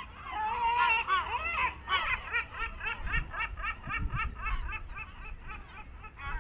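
Birds calling: a fast series of short, harsh repeated notes, several calls overlapping, loudest in the first two seconds.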